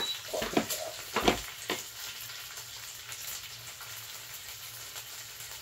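Smoked pork belly sizzling steadily on an electric griddle. In the first two seconds a few knocks and clicks come from a rice cooker lid being opened.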